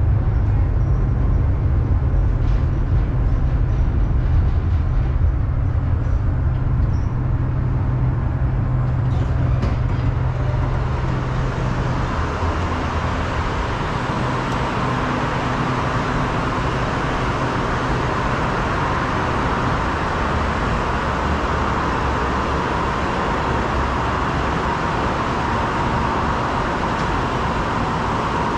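Tram rolling along its track: a steady low rumble, with a few clicks about nine to ten seconds in. About twelve seconds in the rumble gives way to a steady, even hiss beside a tram standing at the platform.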